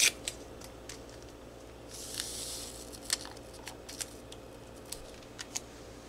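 A paper stevia sweetener packet being handled and opened over a mug. There are sharp clicks at the start, a short high hiss about two seconds in, and a few light scattered ticks after it.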